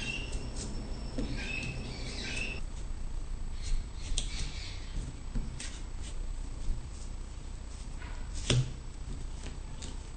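Small paring knife cutting and scraping the green rind off a watermelon: scattered faint scrapes and sharp clicks, the loudest a knock about eight and a half seconds in. Short high squeaks come in the first couple of seconds, over a steady low background hum.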